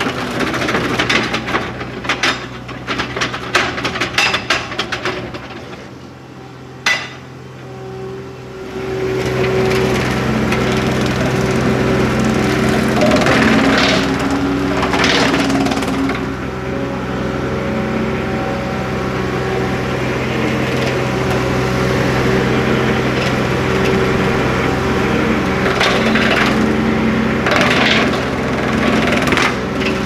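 John Deere 250 skid steer working an Ambusher brush cutter into thick brush: wood cracks and splinters sharply through the first several seconds, with one loud snap about seven seconds in. Then a loud steady engine-and-cutter hum takes over, swelling now and then as it pushes into the trees, a machine the owner finds lacks the power to drive the cutter through this brush.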